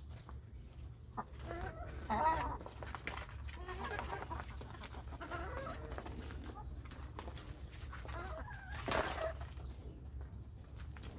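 Domestic hens clucking in short wavering phrases while they feed on scattered corn, loudest about two seconds in and again near nine seconds. Light sharp taps of beaks pecking on a plastic tarp run under the calls.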